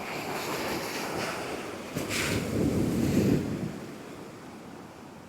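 Heavy surf breaking under a strong wind, with wind buffeting the microphone. There is a sharp click about two seconds in, the sound swells until about three and a half seconds, then drops off.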